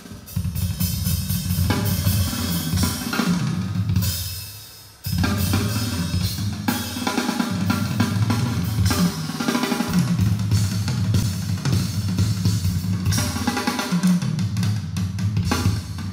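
Recorded music with a drum kit and heavy bass, played from a laptop over USB through a Behringer Xenyx QX1222USB mixer. About three seconds in the music fades away, then it comes back abruptly about two seconds later.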